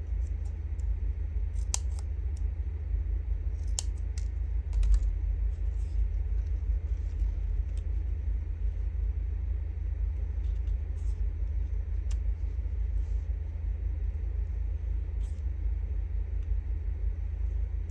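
Paper strips being handled and pressed together on a table: scattered faint clicks and rustles, over a steady low rumble.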